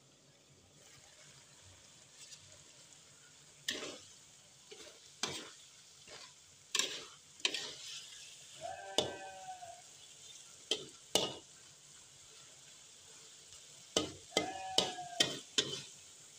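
Metal spatula scraping and knocking against a steel wok as chunks of tofu and chayote in spiced sauce are stirred, in sharp strokes a second or two apart with a quick run of them near the end, over a faint sizzle.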